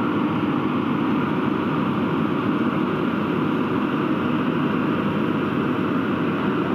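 Mitsubishi Triton pickup's engine running steadily under load as the truck crawls through deep mud.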